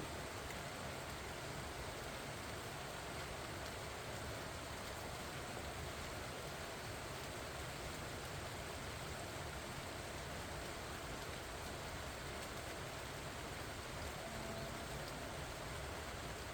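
Steady rain falling on pumpkin vine leaves, an even hiss of drops with no change in strength.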